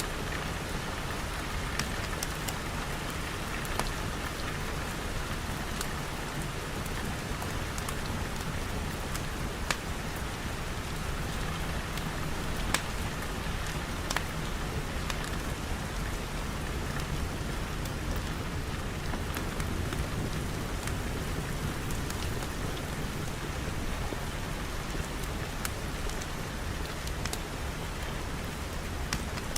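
Steady rain falling, an even hiss with a low rumble underneath and scattered sharp ticks of single drops.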